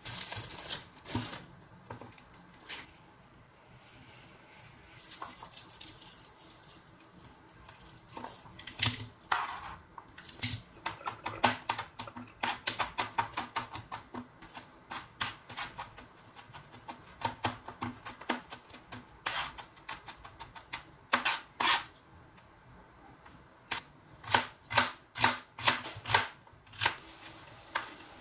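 Kitchen knife chopping garlic and vegetables on a cutting board: runs of quick, sharp taps with pauses between them.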